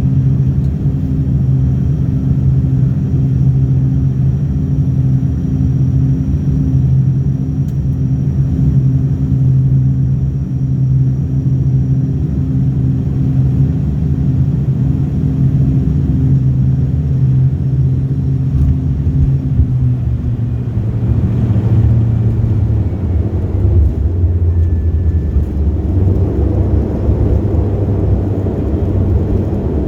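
Airliner engines running with a steady low rumble and a hum; the hum drops in pitch about twenty seconds in as the engines are throttled back.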